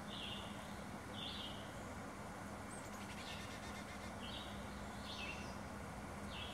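Carolina chickadee nestlings calling from inside a nest box: about six short high calls, roughly one a second.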